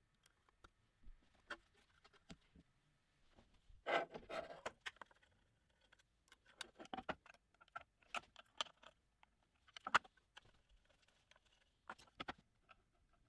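Handling noises from an xTool rotary roller attachment being set up: scattered light clicks and taps of a small screwdriver and fingers on its metal frame and rollers, with a short rattling clatter about four seconds in.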